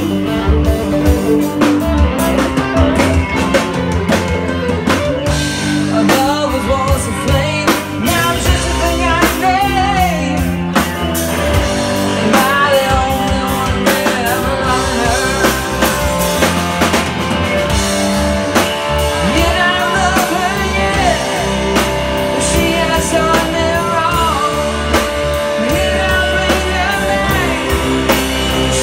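Live rock band playing, with a singer over electric guitars and a drum kit.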